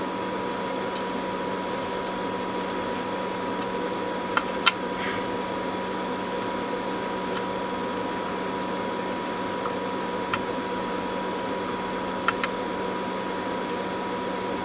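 Steady fan-like whirr with a faint steady tone, broken by a few light clicks.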